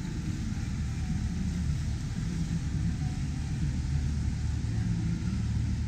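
Low, steady engine rumble of a canal tour boat passing close by, growing slightly stronger about halfway through.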